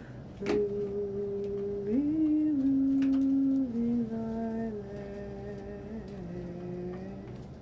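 A slow lullaby melody of long, steady held notes stepping from pitch to pitch, without words. There is a brief click about half a second in and another around 3 seconds.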